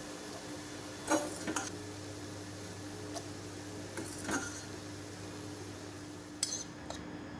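A metal fork clinks and scrapes against a stainless steel pot and bowl as boiled instant noodles are lifted out. The clinks come in three short clusters, about a second in, around four seconds and near the end, over a steady low hum.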